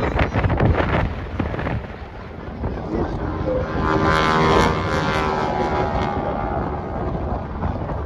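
Aircraft engine heard during a flypast, its steady droning note swelling to a peak about four and a half seconds in and then fading. Wind buffets the microphone in the first couple of seconds.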